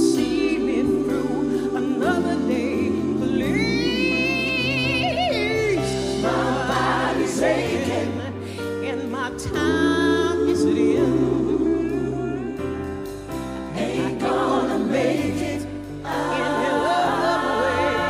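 Live band of keyboard, electric guitar, bass and drums playing under a gospel choir singing sustained harmonies, with a female lead voice singing held, wavering notes over them.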